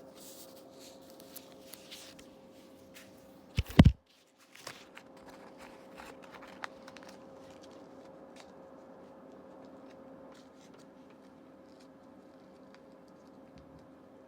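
Hands handling packaging: rustling, scraping and small clicks, over a steady low hum. About four seconds in there is a loud knock close to the microphone, and the sound cuts out briefly. After that the handling thins to a few faint ticks.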